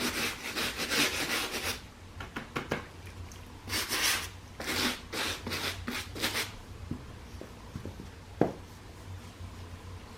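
Quick back-and-forth rubbing strokes on a sneaker during restoration work: a fast run for about two seconds, a pause, then two shorter runs of strokes, followed by a single light knock near the end.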